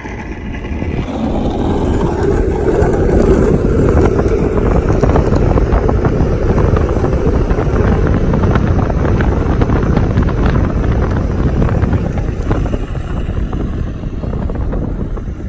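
Wind buffeting the microphone at an open car window over the car's road noise while driving at speed. It builds up over the first couple of seconds, then stays loud and steady.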